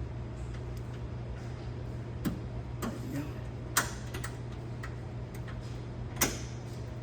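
A few sharp clicks and knocks, the loudest about four seconds in and another near the end, as the lockout pin is worked into the tight-fitting holes of the dump-bed latch bracket, over a steady low hum.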